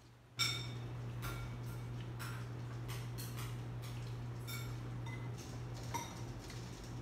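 Spoon clinking against a soup bowl during eating, in irregular light clinks about once or twice a second, over a steady low hum.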